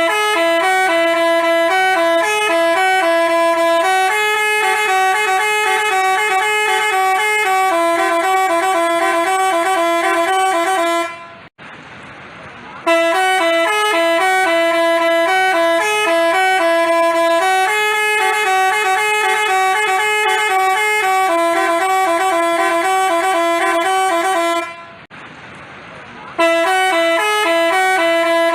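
Telolet basuri multi-tone bus horn playing a quick melody of steady, bright notes. It breaks off twice for about a second and a half and starts the tune over each time.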